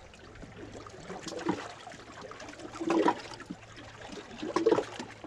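Small waves lapping and sloshing among shoreline rocks, with a few louder splashes at irregular intervals.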